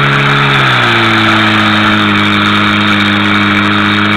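Portable fire pump's petrol engine running loud and steady, dropping to a lower, steady engine speed about a second in, with a steady rushing hiss alongside.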